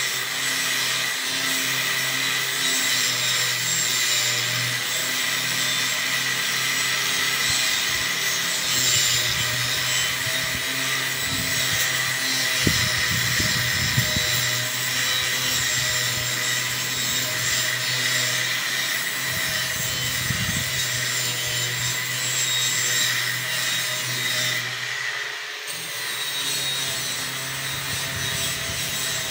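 Angle grinder running steadily as it scours rust off steel greenhouse pipe, a constant motor whine with scraping from the attachment on the metal. The sound eases off briefly near the end and picks up again.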